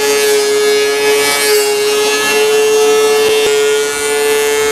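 DeWalt benchtop thickness planer running with a steady, high whine as a cedar board feeds through the cutterhead.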